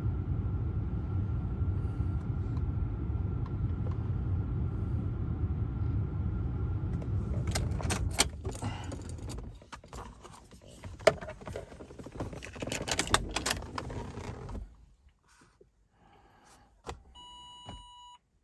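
A steady low hum with a faint high tone stops about seven seconds in. Then keys jangle and clatter for several seconds, and a short electronic beep sounds near the end.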